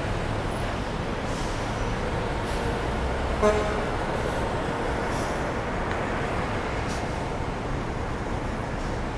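Steady street traffic noise, with one short vehicle horn toot about three and a half seconds in.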